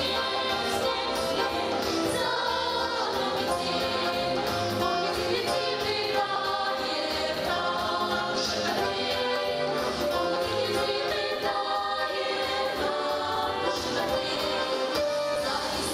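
A song sung by a group of voices, choir-style, over instrumental backing.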